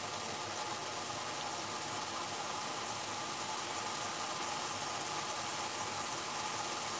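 Curry sauce bubbling and sizzling steadily in a frying pan over a gas flame turned up high, reducing so that it thickens and catches on the pan.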